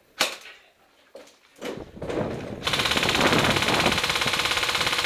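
Airsoft electric gun firing a sustained full-auto burst of about three seconds: a rapid, even rattle of shots that stops abruptly. A short scuffling noise comes just before it.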